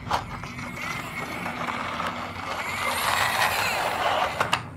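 A plastic toy car being pushed along a toy bridge, rolling and rattling, with sharp clicks near the start and near the end.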